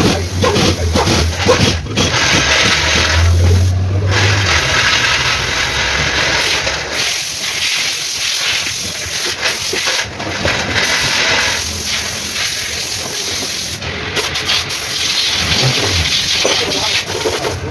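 Steady, loud hissing noise, with a low hum under it that fades out about four seconds in.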